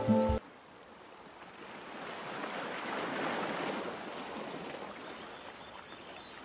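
Background music cuts off, then a soft rushing noise like surf swells to a peak about three seconds in and slowly fades.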